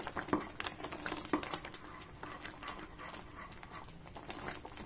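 Thick tomato ketchup simmering down in a pan, its bubbles bursting with soft, irregular pops and plops.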